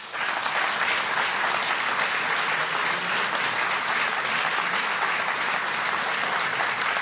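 Audience applauding steadily, a dense patter of many hands clapping in a large hall.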